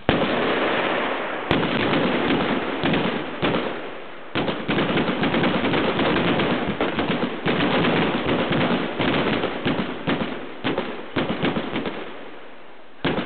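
A La Bomba chain of 80 firecrackers going off: it starts suddenly in a rapid, near-continuous string of bangs, with a brief lull about four seconds in, then thins to scattered single bangs and a last bang just before the end.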